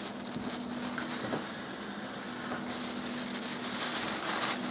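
Small electric air pump of a Storz & Bickel Volcano vaporizer running with a steady low hum, filling a large plastic roasting bag; the thin plastic rustles louder near the end as the bag is handled.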